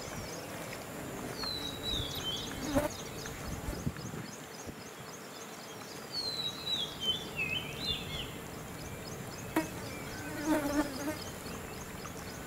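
Insects buzzing in a steady, evenly pulsing high chorus, with a bird's descending whistled call twice. A few short, louder low sounds come about three seconds in and again around ten to eleven seconds.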